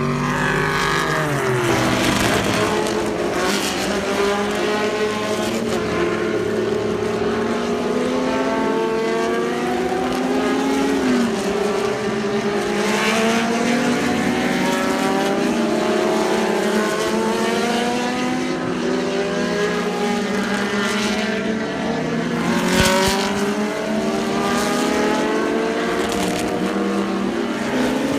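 Vintage race car engines at full throttle as cars pass on track, the engine notes climbing and dropping again and again through gear changes.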